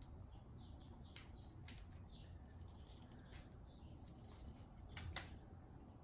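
Scissors cutting through folded origami paper: a handful of quiet, sharp snips, the loudest two close together about five seconds in.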